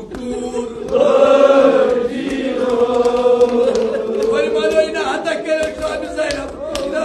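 Men chanting a Kashmiri marsiya, a Shia elegy of mourning, in long drawn-out melodic lines that swell louder about a second in.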